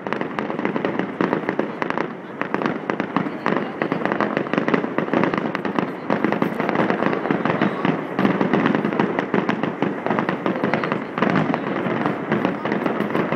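Fireworks display: aerial shells bursting one on top of another, a dense, continuous run of bangs and crackles without a pause.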